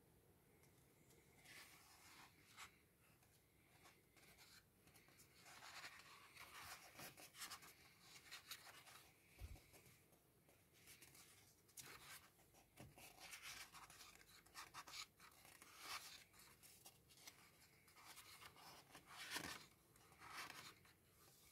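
Faint rustling and sliding of paper as the pages of a thick paperback book are turned and smoothed by hand, in several separate bursts.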